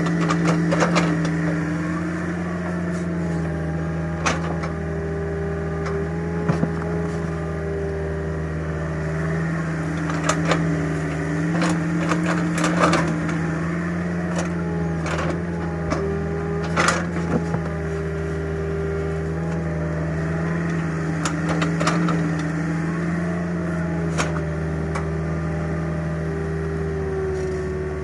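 Mini excavator engine running steadily under load, its pitch wavering slightly as the hydraulics work, with sharp cracks and knocks every few seconds as the bucket tears at old tree roots.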